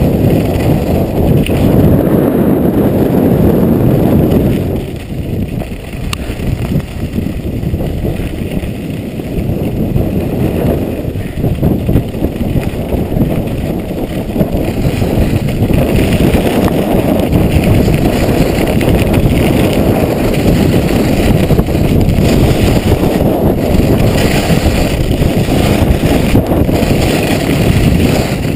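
Wind buffeting a camera microphone during a fast downhill ski run, a loud, steady low rumble that eases for a few seconds about five seconds in, with the hiss of skis sliding on packed snow beneath it.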